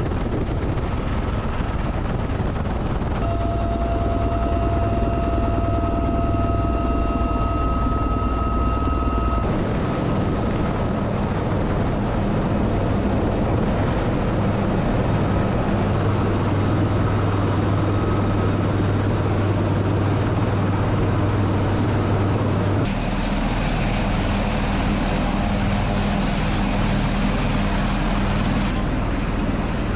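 UH-1Y Venom helicopter twin turboshaft engines and rotors running: a steady loud noise with a high whine and a low hum. The sound changes abruptly several times.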